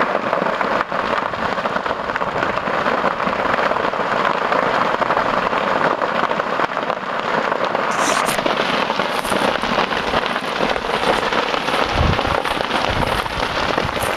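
Grass-and-brush field fire crackling and popping in a dense, continuous stream, with sharper crackles from about eight seconds in and a couple of low thumps near the end.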